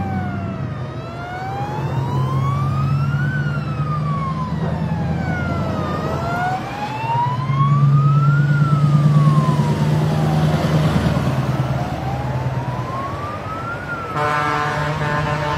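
A siren wailing slowly up and down, rising and falling about every five seconds, over the low rumble of heavy diesel trucks, which grows louder as a tractor-trailer passes. A vehicle horn sounds briefly near the end.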